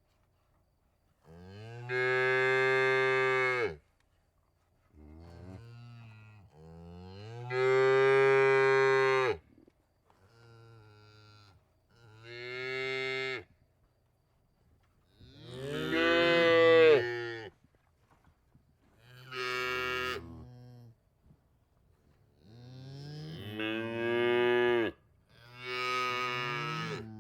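Cattle mooing repeatedly: about nine separate moos of varying length and loudness, each lasting one to three seconds, with short quiet pauses between them.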